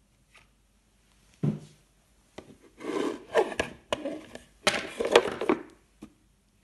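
Handling of plastic toy figures and an overturned plastic bowl on a table: a single knock about a second and a half in, then a few seconds of repeated scraping and rubbing with sharp clicks.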